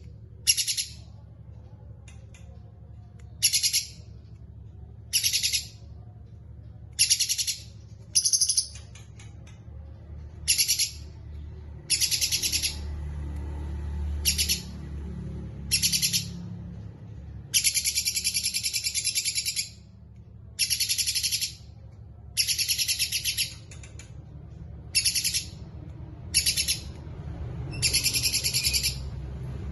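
A songbird giving rapid, high-pitched trills in repeated bursts about every one to two seconds, most short and a few running about two seconds, over a faint low hum.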